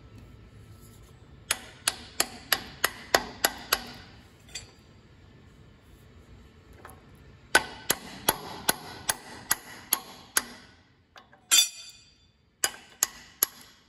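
Ball-peen hammer tapping on the steel lift arm of an Allis-Chalmers tractor's three-point hitch, nudging it to line up the pin hole for the lift linkage. The strikes are sharp and ringing and come in quick runs of about three a second, with a brief rattle shortly before the last few taps.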